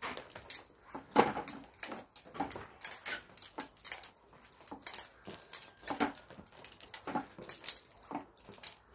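Climbing rope being hauled hand over hand through belay devices in quick, irregular strokes, with rope rustling, light metal clinks and short effortful breaths.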